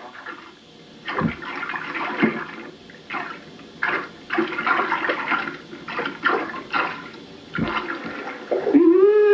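Water splashing and sloshing as a northern pike is grabbed and landed by hand in the shallows, with a couple of dull bumps. Near the end comes a short voice call that rises and then falls in pitch, the loudest sound.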